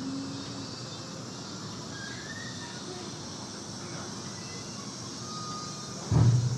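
Steady outdoor background noise with a few faint, brief high sounds, then one short, loud, low thump about six seconds in.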